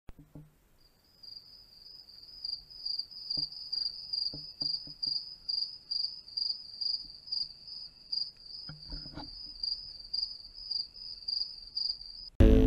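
An insect chirping in a steady, high-pitched pulse, about two to three chirps a second, with a few soft knocks beneath it. Loud electronic music cuts in abruptly just before the end.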